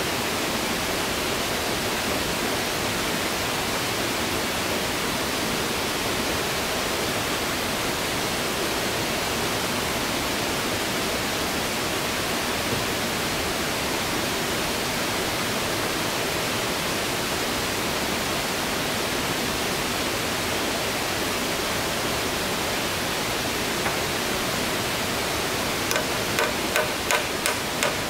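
Steady, even rushing noise, with a run of hammer blows on wood starting near the end, about three a second.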